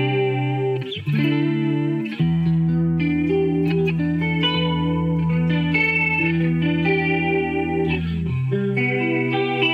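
Electric guitar chords played through an Old Blood Noise Endeavors Reflector chorus pedal on its myriad chorus setting, the modulate knob stepped from shallower to deeper chorus. Short chords about a second apart, then one chord left ringing for about six seconds, then a new chord near the end.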